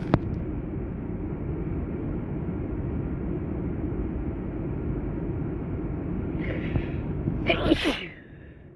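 A person's single loud, sudden sneeze about seven and a half seconds in, over a steady low rushing background noise.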